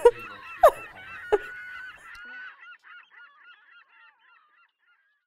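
A woman crying, with three loud honking nose-blows into a tissue in the first second and a half, then fainter sobbing that fades out.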